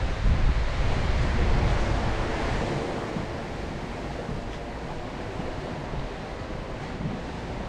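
Wind buffeting the microphone, heaviest for the first two or three seconds and then easing, over a steady wash of sea.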